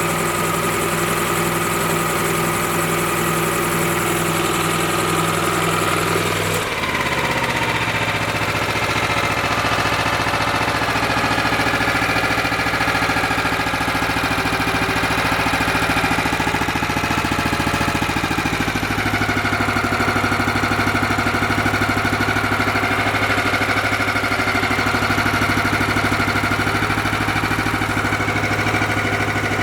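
Single-cylinder Honda GX390 engine driving a three-piston air compressor pump, running steadily while it pumps up the 60-gallon tank. Its pitch shifts abruptly about seven seconds in.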